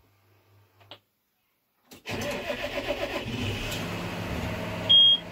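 John Deere 6195R's six-cylinder diesel started with the key about two seconds in, catching at once and then running steadily. Near the end a short, loud electronic beep sounds from the cab.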